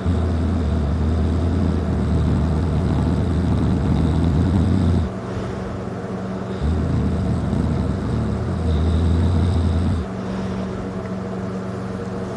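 A man snoring loudly in a deep sleep after heavy drinking: two long, low-pitched snores, each several seconds long, with softer breathing between them.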